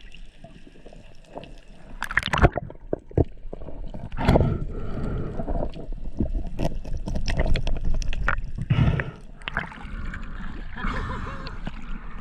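Water gurgling and splashing around a camera dipping in and out of the sea surface as a spearfisher swims, with scattered knocks and clicks from handling.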